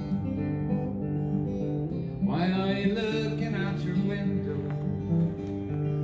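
Acoustic guitar music, strummed and sustained, played from a test record through a vintage Advent 3 bookshelf loudspeaker. About two seconds in, a second melodic line with bending pitch joins the guitar.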